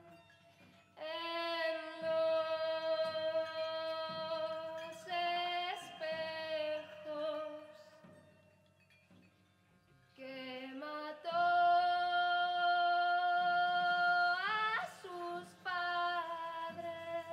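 A woman singing long, held notes into a microphone, in two phrases with a pause of about three seconds near the middle. The long note of the second phrase bends upward in pitch at its end. A quiet low backing continues underneath.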